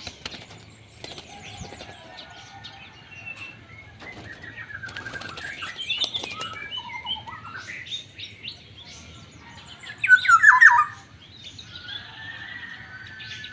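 Black-naped oriole (kepodang) calling: a run of short whistled and chattering notes, with a loud burst of quickly falling notes about ten seconds in.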